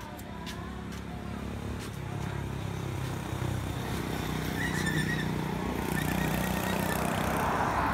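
A road vehicle's engine running, growing steadily louder as it approaches.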